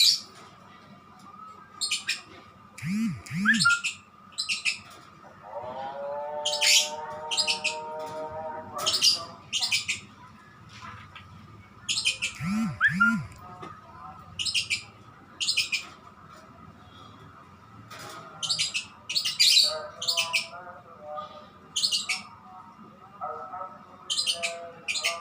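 Male lovebird giving short, sharp squawking chirps in scattered bursts, at times in quick runs of several. This is the chatter that keepers take as a sign that the male is about to 'konslet', to break into its long rapid song.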